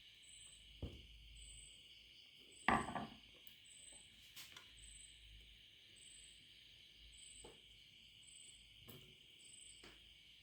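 A light knock just under a second in, then a louder clatter with a brief ring a little under three seconds in: small hard objects or tools set down on a work surface. A few fainter taps follow, over a steady high hiss with a faint regular chirp about once a second.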